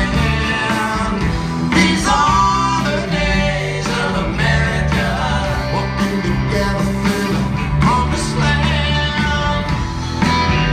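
Live country-rock band playing a song with electric guitar, bass and drums, and a lead vocal singing over it.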